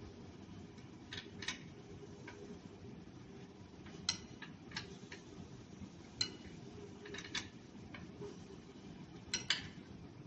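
Light clicks and taps at irregular intervals, as of tools or metal parts being handled, over a steady low hum.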